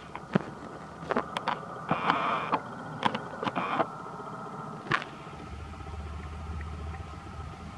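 Leaves rustling and stems snapping in short sharp clicks as a macaque pulls down leafy plants and strips leaves to eat, mostly in the first five seconds, over a steady background hum.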